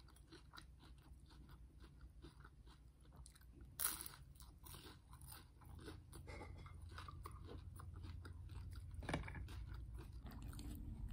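Close-up chewing of crunchy food with the mouth closed: many small, sharp crunches, with two louder crunches about four and nine seconds in. A low hum rises in the background over the second half.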